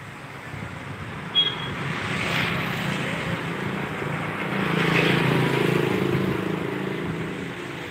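A steady engine-like drone that swells to its loudest about five seconds in and then eases off, with one short high chirp just over a second in.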